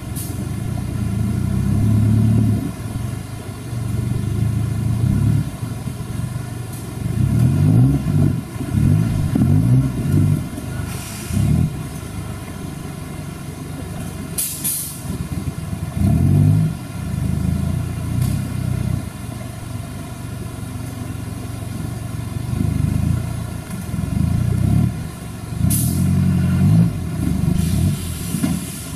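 Off-road buggy's engine revving in repeated surges of a second or two between lower running as the vehicle crawls over boulders in a creek bed.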